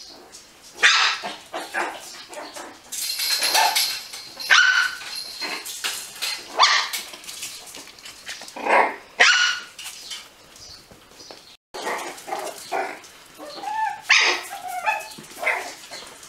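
Several puppies play-fighting, giving short, high-pitched barks and yips at irregular intervals throughout.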